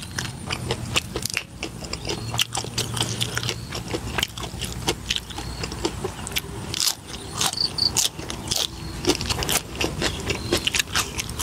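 A person chewing crunchy food, crispy fried pork and raw green vegetables, in a steady run of small crunches.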